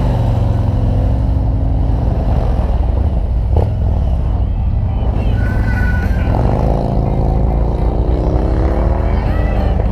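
Harley-Davidson touring motorcycle's V-twin engine running on the road under heavy wind rumble. From about six seconds in, the engine note rises steadily as the bike accelerates.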